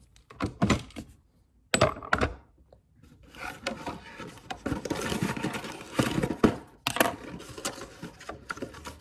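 Handling noise at a wooden desk: a few sharp knocks in the first two seconds as objects are set down, then about six seconds of close rustling and clattering as hands and clothing move right by the microphone.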